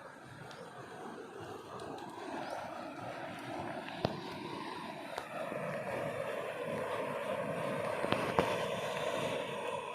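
A motor's steady drone growing gradually louder, with a few sharp clicks over it.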